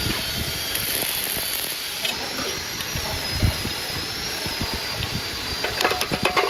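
A motor running steadily with a thin high whine, and a quick run of clicks near the end.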